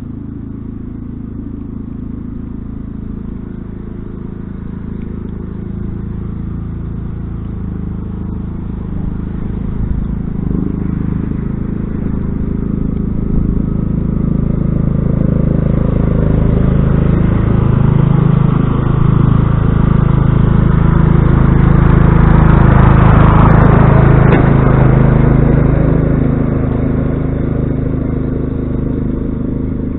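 Old Sears Craftsman garden tractor engine running steadily while the tractor plows snow with its blade. It grows louder as the tractor comes closer and is loudest about three-quarters of the way through. Around that point the rush of the blade scraping and pushing snow joins the engine, then the sound eases a little.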